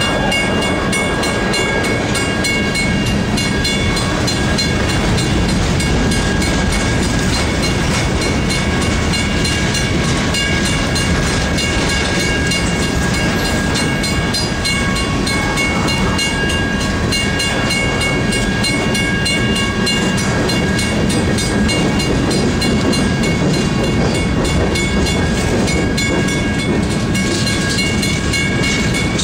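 A freight train of tank cars and covered hopper cars rolling past close by: a steady rumble and rattle of wheels on the rails, with a few steady high-pitched tones riding over it.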